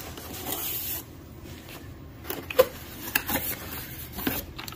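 Long cardboard shotgun box being opened by hand: cardboard rubbing and rustling at first, then a run of knocks and taps, the loudest about two and a half seconds in.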